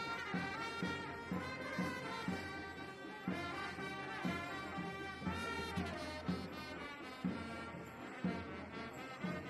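Procession music from horn-like wind instruments playing a melody over a steady drum beat, about two beats a second. Several notes slide up and then down in pitch around the middle.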